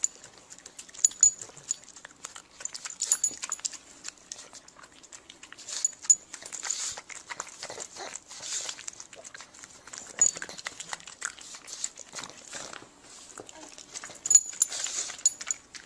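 A dog's sounds, made of many short, sharp noises scattered irregularly throughout.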